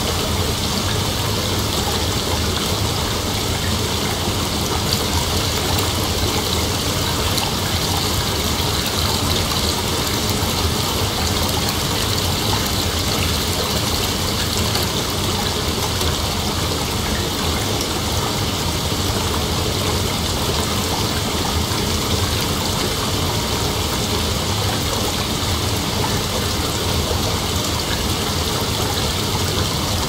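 Heavy rain falling steadily, a dense, even wash of drops with no thunder.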